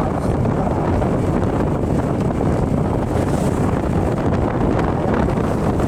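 Steady, loud wind buffeting on the microphone while riding a motorcycle at speed, with the motorcycle's running lost in the rush.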